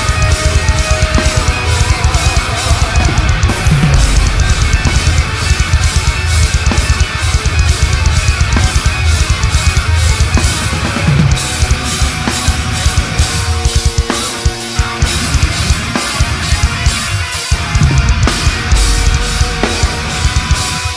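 Heavy metal band playing live: distorted electric guitars over fast, dense drumming with a pounding bass drum. About two-thirds of the way through, the low end drops out briefly in a few short stops.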